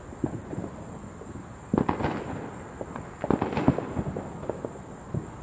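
Fireworks and firecrackers going off around the neighborhood: scattered single pops, with two rapid volleys of crackling bangs about two seconds in and again about three and a half seconds in.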